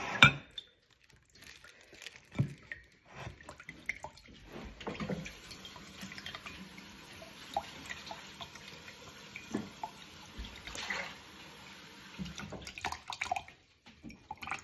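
Coconut water running in a thin stream from a hole in a coconut into a partly filled glass: a faint steady trickle with a few sharper taps and splashes.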